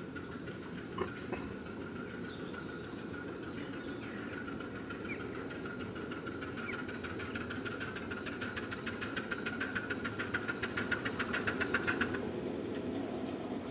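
Miniature steam locomotive approaching, its exhaust beats growing louder into a rapid, even chuffing that stops suddenly near the end, over a steady low rumble and a steady high-pitched tone.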